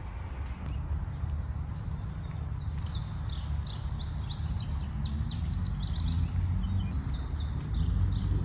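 A songbird chirping rapidly and repeatedly from about a third of the way in, over a steady low outdoor rumble.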